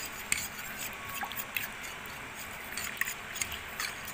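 A fork mixing cornstarch with water in a bowl to make a slurry, with irregular light clicks as the fork strikes the bowl.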